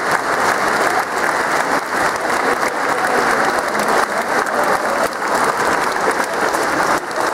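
Concert audience applauding: dense, steady clapping from a large hall full of people.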